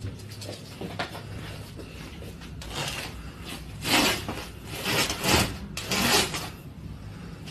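Woven straw sleeping mat scraping and rustling as a small dog pushes it along a bed, in four or five loud swishes in the second half, over a low steady hum.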